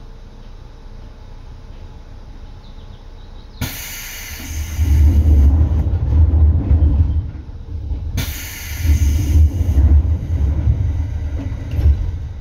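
Inside a Seibu 2000-series electric commuter train (set 2057F): a heavy low rumble with two sudden bursts of hiss. The first burst starts with a click about three and a half seconds in, and the second comes about eight seconds in.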